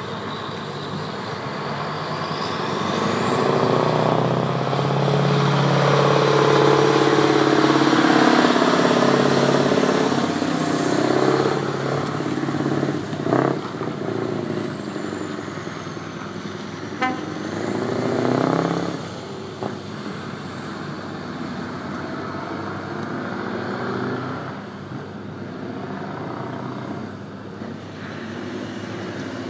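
Scania 143 truck's V8 diesel engine running, growing louder over the first few seconds and loudest around six to ten seconds in, then easing off. A thin high whistle rises and falls above it. A short sharp knock comes about thirteen seconds in.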